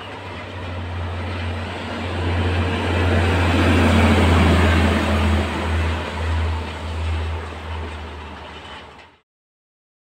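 PKP Energetyka diesel catenary-maintenance rail vehicles (drezyny) passing through, a deep engine drone over wheel-on-rail noise. It is loudest about four seconds in, fades, and cuts off suddenly near the end.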